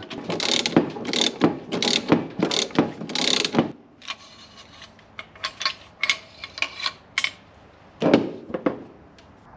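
Ratchet wrench clicking in repeated strokes as the spring compressor bolts on a motorcycle shock are backed off. After about three and a half seconds this gives way to lighter clicks of metal parts being handled, then a thump a little after eight seconds.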